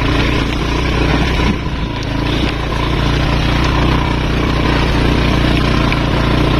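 Motorcycle engine running steadily under load, pulling up a slippery, rain-soaked dirt track.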